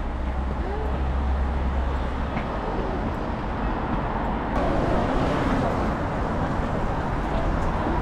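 Steady road traffic noise: a continuous rumble of passing cars, getting fuller about halfway through.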